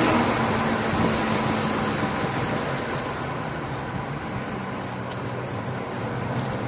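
BMW E46 M3's inline-six heard inside the cabin over tyre and wind noise, running hard at first, then quieter from about three seconds in as the car brakes from about 75 mph to 45 mph for a corner.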